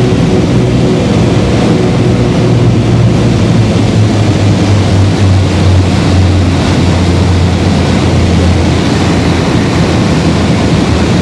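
Cockpit sound of a Beechcraft Baron's twin piston engines and propellers droning over airflow noise during the landing rollout. The drone drops a little in pitch about halfway through.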